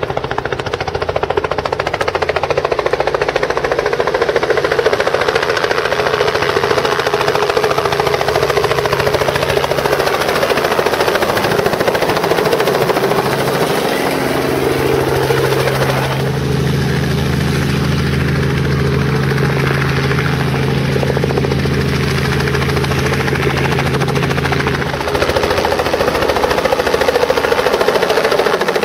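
Robinson R44 Clipper II helicopter flying low and close past, its six-cylinder piston engine and rotor running steadily. A deeper steady hum is strongest through the middle as it passes nearest.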